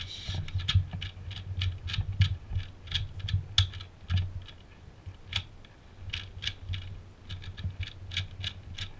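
A Cyclone Boys 2x2 Rubik's cube being scrambled by hand: quick, irregular plastic clicks of its layers turning, several a second, with soft low thuds from handling.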